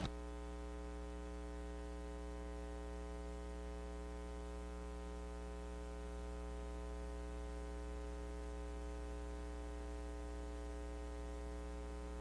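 Steady electrical mains hum with a buzz of many overtones over a light hiss on the broadcast audio line, unchanging throughout.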